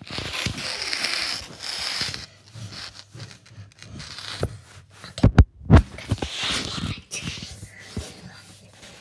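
Rustling and scraping of a handheld phone being moved about close to the microphone, with a few loud knocks a little past the middle.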